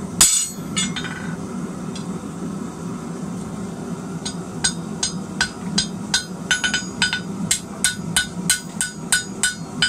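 Hand hammer striking a spring fuller on an anvil to forge fullers into a red-hot flat steel bar. One loud ringing clang comes just after the start; from about four seconds in there is an even run of ringing strikes, about three a second.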